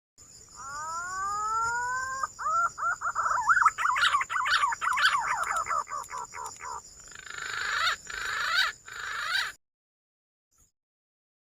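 Green pigeon (punai) song. It opens with a rising whistled note, runs into a fast series of warbling whistles, and ends in a rougher falling chatter that cuts off abruptly about nine and a half seconds in. A steady high whine sits under the call while it plays.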